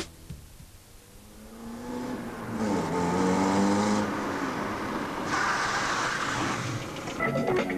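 Old hatchback car driving along a road and passing close by: the engine note rises and falls, then a rush of tyre and wind noise as it goes past about five seconds in. Music comes in near the end.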